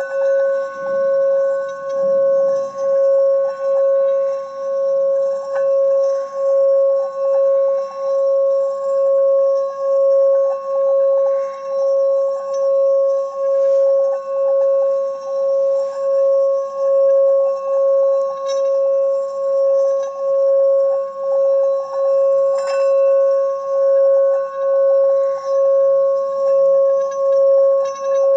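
Tibetan singing bowl sounding one steady ringing tone with a fainter higher overtone. Its loudness swells and fades about once a second.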